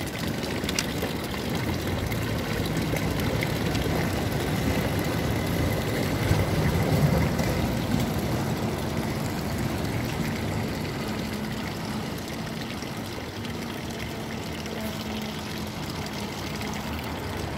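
Water pouring steadily from a stone fountain's spout into its basin, a continuous splashing trickle that grows a little fainter over the last few seconds.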